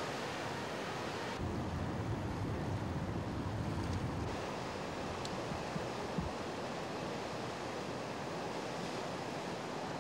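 Steady rushing noise of a swollen river in flood, with wind buffeting the microphone. About a second and a half in, the sound shifts to a heavier low rumble for a few seconds.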